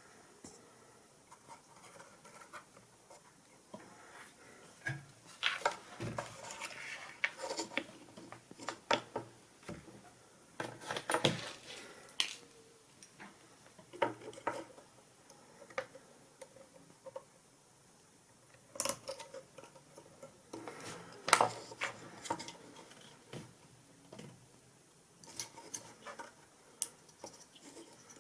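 Small plastic parts of a PC power-supply fan clicking and scraping as they are handled and fitted back together, the plastic washer going back onto the fan's shaft. Irregular light clicks with short pauses between them.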